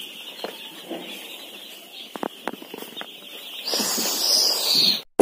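A brood of several hundred day-old Lohmann meat broiler chicks peeping together in a continuous high chorus. There are a few sharp clicks a little past two seconds in, and the peeping grows louder near the end before the sound cuts off.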